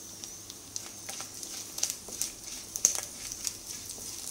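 Sliced shallots and curry leaves frying in hot coconut oil: a steady light sizzle with irregular sharp crackles and pops as the curry leaves burst in the oil, and a wooden spatula stirring.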